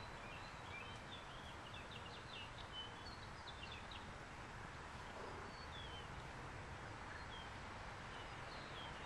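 Faint chirping of small birds: bursts of rapid high chirps near the start and a few short downward-slurred notes later, over a steady low outdoor background rumble.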